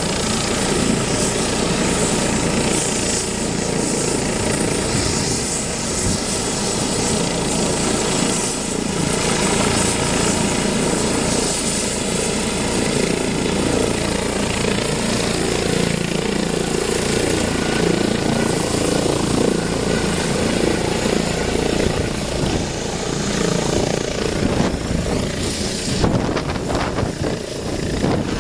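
Eurocopter EC155B helicopter running: its twin turbine engines give a steady whine over the thrum of the main rotor and the ducted Fenestron tail rotor. Near the end the sound shifts as the helicopter lifts off into a low hover.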